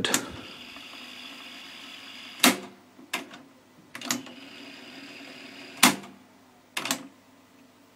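Piano-key transport buttons of a Pioneer CT-F4040 cassette deck clunking as they are pressed and released, about half a dozen sharp clicks. Between them the tape mechanism runs with a steady whir for the first couple of seconds and again for about two seconds in the middle.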